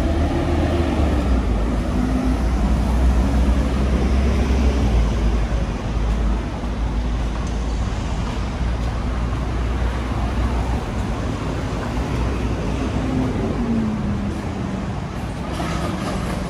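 City street traffic: the steady low rumble of passing vehicles, with engine tones rising and falling, and a short noise near the end.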